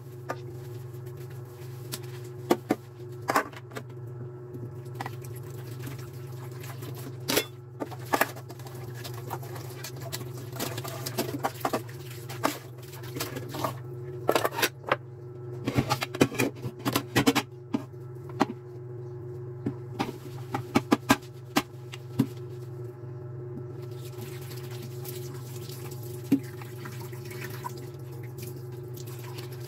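Dishes being washed by hand in a stainless-steel sink: scattered clinks and knocks of metal pans and bowls being scrubbed and handled, over a steady low hum. Near the end the tap runs as a glass bowl is rinsed.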